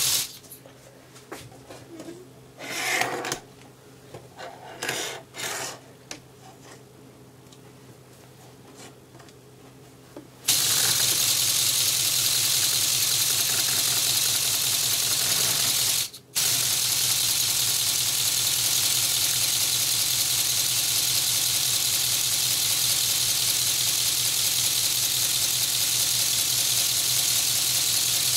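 Lego pneumatic inline-12 engine running fast, a steady hiss of compressed air with a quick, even clatter of its pistons and valves. It stops just after the start, leaving a quiet stretch with a few light knocks, then starts again about ten seconds in and runs on, cutting out for a moment about six seconds later.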